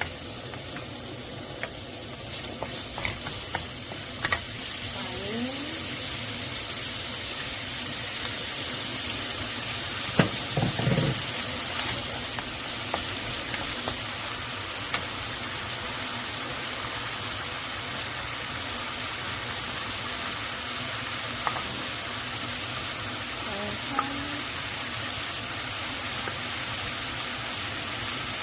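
Food sizzling steadily in a frying pan, with scattered clicks and scrapes of a utensil stirring it. A brief low thud about ten seconds in.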